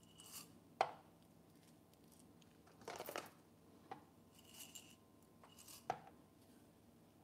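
Faint, scattered clicks and short rustles of whole coffee beans being handled while a 16-gram dose is trimmed on a scale, about half a dozen small separate sounds.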